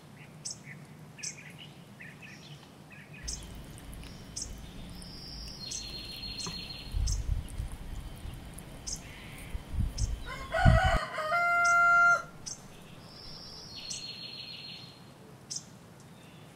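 Small birds sing and chirp over and over, with one rooster crow about eleven seconds in, the loudest sound. In the middle there are dull low thumps as a wooden spoon works stiff dough in a glass bowl.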